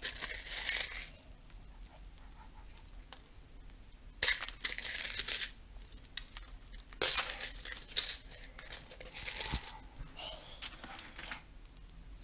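Crinkling of a plastic sprinkle bag and rattling sprinkles, in about four short bursts, as sprinkles are shaken onto a frosted cake.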